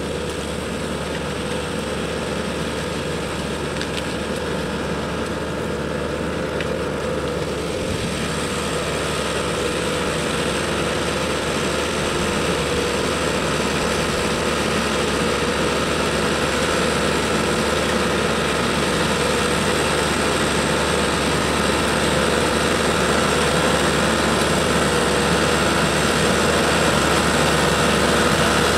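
Tractor engine running steadily while its front-mounted under-canopy trimmer cuts the low branches of an olive hedgerow, growing gradually louder as the machine approaches.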